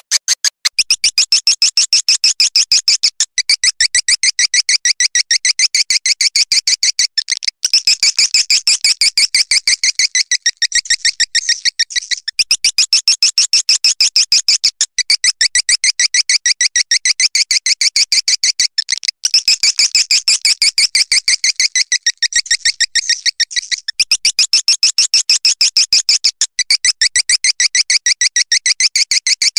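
Swiftlet lure call: a rapid train of high, twittering swiftlet chirps, several a second, broken by short pauses every few seconds. This is the playback sound used to call swiftlets into a nesting house.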